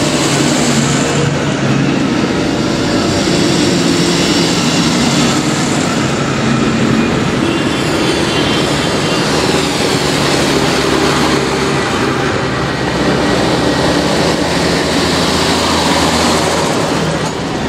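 Diesel farm tractors driving past one after another on a tarmac road, engines running and tyres rolling. A Mercedes-Benz MB-trac pulling a passenger trailer goes by close near the end.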